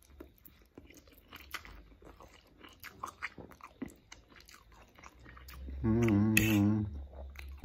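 A man chewing and slurping a forkful of noodles, with many small wet mouth clicks. Near the end comes a louder hum from him, about a second long.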